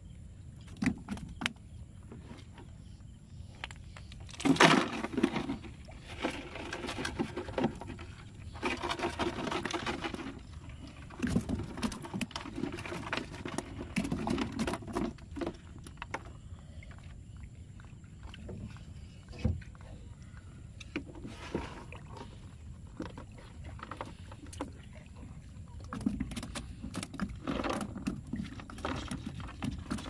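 Fish, a nylon net and a bamboo basket being handled in a wooden boat: irregular knocks, rattles and rustling in several bursts, the loudest about four seconds in, over a low steady rumble.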